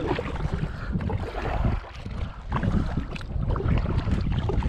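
Kayak paddle strokes, the blades dipping and splashing in the water, with wind buffeting the microphone in a low rumble.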